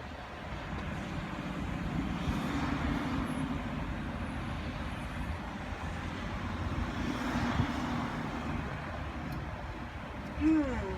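Street traffic going by: a steady low rumble that swells twice as vehicles pass. Near the end comes a short tone that rises and falls.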